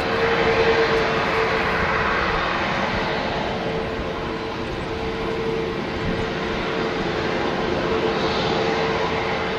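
Airbus A321neo jet airliner with Pratt & Whitney PW1100G geared turbofan engines on final approach: a steady rush of engine noise with a constant hum running through it.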